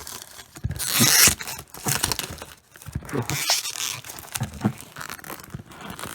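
Plastic packaging around a new PC power supply being torn and crinkled by hand in irregular bursts, the loudest about a second in, with a few small knocks.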